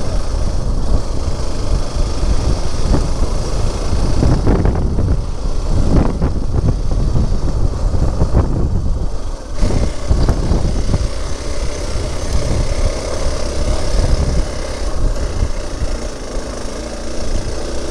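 Motorcycle engine running while riding along, a dense steady rumble, with a steady engine tone coming through in the second half.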